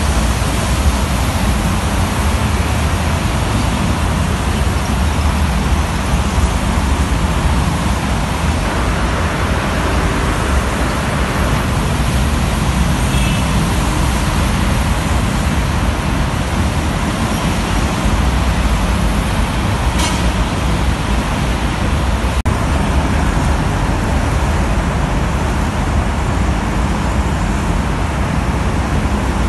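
Dense, steady roadway traffic noise from trucks, buses and cars passing on a wet multi-lane toll road, with tyres hissing on the rain-wet surface.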